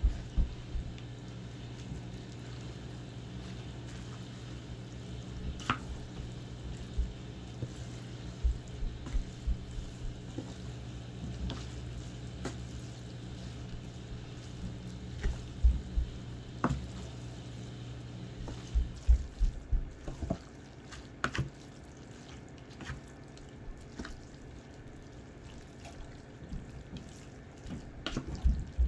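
A spatula stirring spaghetti squash strands through a thick, wet tomato sauce in a speckled enamelware roasting pan: wet squelching, with irregular knocks and scrapes against the pan. A steady low hum runs underneath and stops about two-thirds of the way through.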